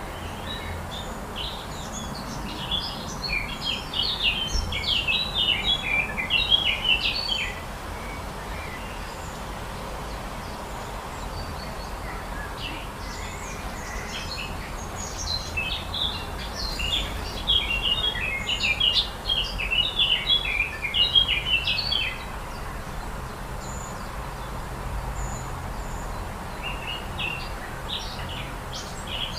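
A songbird singing in long bouts of quick, jumbled high chattering notes, three times, over steady low background noise.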